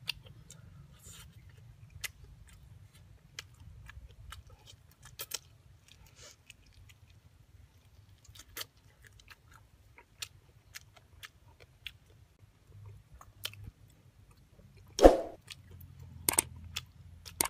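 A person eating cooked snake meat close to the microphone: irregular chewing, biting and crunching clicks, with louder crunches near the end.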